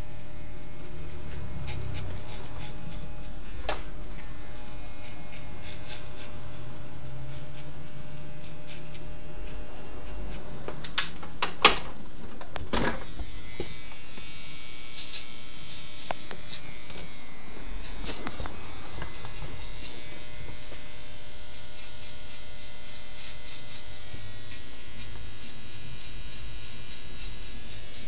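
Corded electric hair clippers running steadily as they cut a man's hair. A few sharp clicks come near the middle, one of them the loudest sound.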